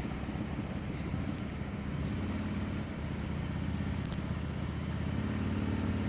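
Harley-Davidson Dyna Low Rider's V-twin engine running steadily under way on the road, with its low rumble growing slightly stronger near the end.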